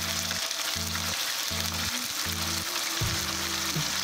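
Thin slices of marinated beef sizzling steadily in very hot oil in a wok as they are stirred with chopsticks.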